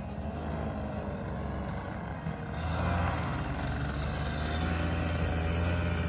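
Powered parachute's engine and propeller droning as it flies low past, with a wavering pitch, getting louder about two and a half seconds in as it comes closer.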